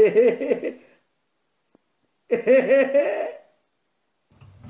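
Two short wordless bursts of a person's voice with a wavering pitch: one at the start and another about two and a half seconds in.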